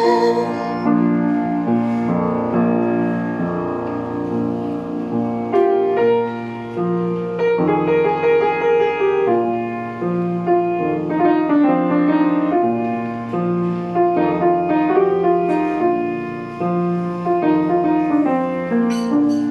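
Grand piano played solo: a steady flow of sustained chords under a slow melody line, with no voice.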